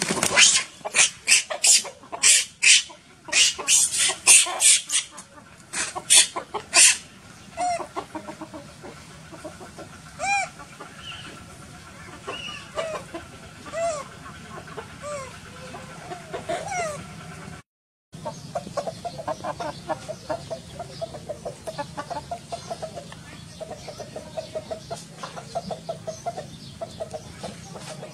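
Chickens squawking loudly and harshly over and over for the first several seconds, then clucking. The clucking goes on as a steady run through the later part.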